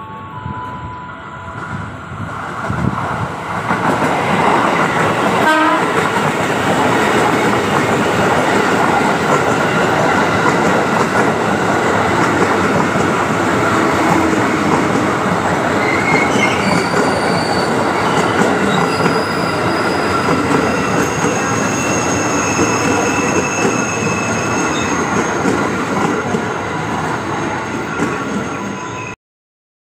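KRL Commuter Line electric multiple unit passing at close range: the wheel and running noise builds over the first few seconds and then stays loud and steady. A thin high wheel squeal comes in around the middle, and the sound cuts off abruptly near the end.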